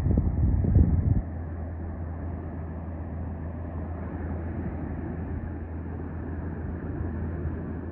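Steady drone of a Cessna 185 Skywagon's piston engine and propeller as the banner-towing plane flies along the beach, a low even hum under a rushing haze. Wind buffets the microphone for about the first second.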